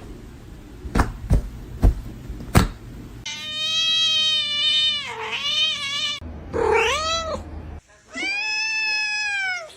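A cat meowing: three drawn-out meows, the first long with a dip in pitch, a shorter rising-and-falling one, then another long one. A few sharp knocks come before them.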